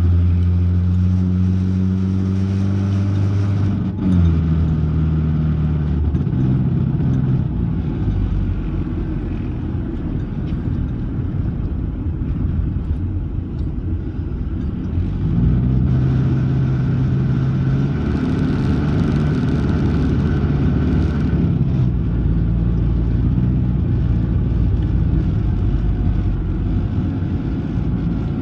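A car accelerating, heard from inside the cabin. The engine pitch rises for about four seconds, drops suddenly as the gear changes, and climbs again, then gives way to a loud, rough low rumble while driving. This is the car's horrible noise, which shows when the gas is pressed.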